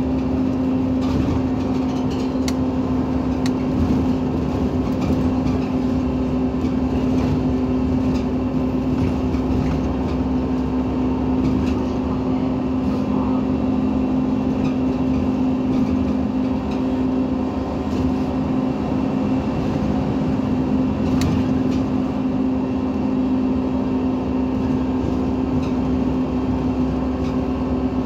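Iveco Cursor 8 natural-gas engine of an Irisbus Citelis 18 articulated bus idling steadily with a constant hum.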